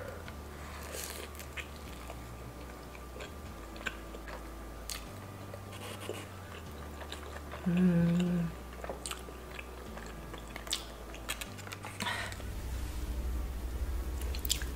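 Close-miked eating sounds: crisp bites and chewing of a fried samosa, with many small crunchy clicks. A short hum, the loudest sound, comes about eight seconds in.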